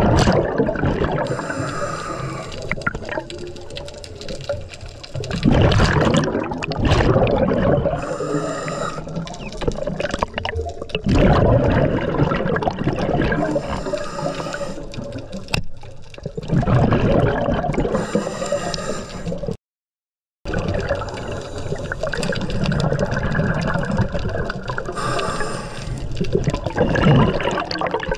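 Underwater sound of a diver breathing: loud bursts of exhaled bubbles every five or six seconds over a steady wash of water noise. The sound cuts out for under a second about two-thirds of the way through.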